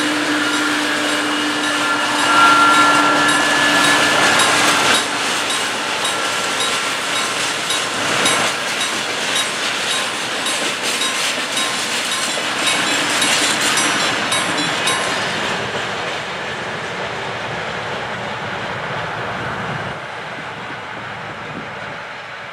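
Freight train passing close by: a Dr14 diesel locomotive's engine running steadily in the first few seconds, then a long run of wagons with wheels clicking over the rail joints. The sound fades after about fifteen seconds as the last wagons go by.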